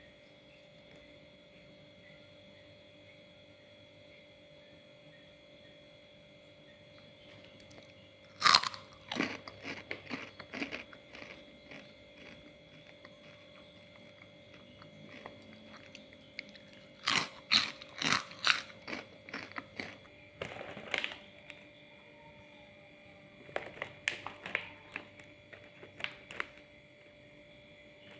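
Crunchy Miaow Miaow keropok (puffed cracker snack) being bitten and chewed, in several bouts of crisp crunching. The first and loudest bout starts about a third of the way in, and more come around the middle and near the end. Between them there is only quiet room tone with a faint steady hum.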